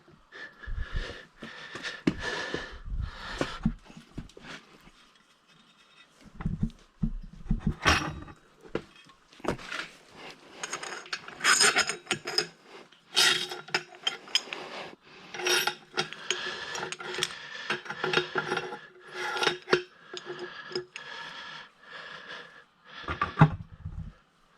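Metal parts and hand tools being worked by hand: irregular clinks, knocks and scraping of metal on metal, with a quieter pause about 5 seconds in.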